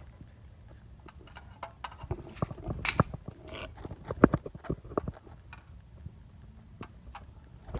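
Claw hammer knocking and prying at a DirecTV satellite receiver's broken casing, an irregular string of clicks, cracks and knocks with a few sharper hits about three, four and five seconds in.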